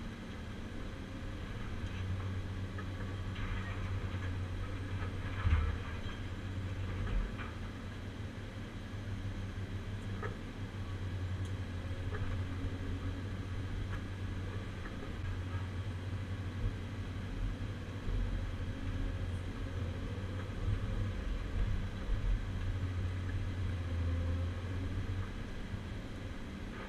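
CAT 345C UHD demolition excavator heard from inside its cab: the diesel engine and hydraulics running steadily as the Atlas Copco CC 4700 scrap shear works scrap, with occasional knocks and clanks, the loudest about five seconds in.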